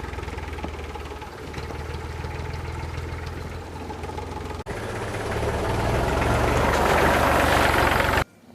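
Engine idling with a steady low rumble; after a brief break a little past halfway it grows louder, then cuts off abruptly near the end.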